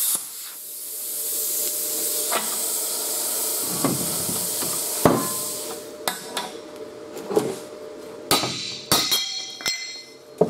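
Plasma cutter's arc stopping at the end of a cut through steel C-channel, followed by a steady hiss of air for several seconds. Then a series of ringing hammer knocks on the cut steel piece, the loudest about five seconds in and a quick run of them near the end.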